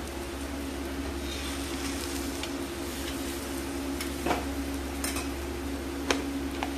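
Jaggery pancake (gur ka puda) sizzling steadily on a tawa. A metal spatula scrapes under it and taps the pan a few times in the second half, with two sharper clicks at about four and six seconds in.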